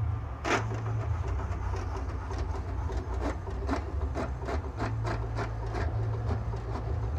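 HP inkjet printer printing a test page: a steady low motor hum under a run of short clicks and knocks from the print-head carriage and paper feed, the loudest click about half a second in.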